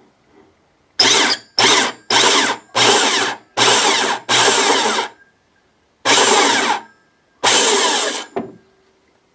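Electric drill run in eight short bursts, boring a small screw hole for a lid stay into plywood.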